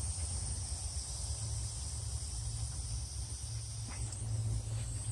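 Steady low background hum with a faint, steady high-pitched hiss above it: the ambient noise of the workspace, with no work sound standing out.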